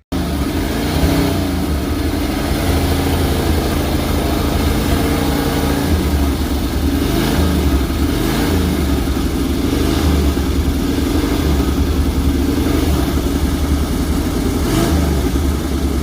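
1940 Ford pickup's V8 engine, thought to be a small block, running steadily, its pitch rising and falling now and then as it is revved lightly.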